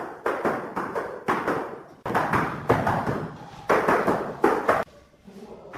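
Repeated irregular tapping strokes of hand tile-setting work, about nine in all, which stop about five seconds in.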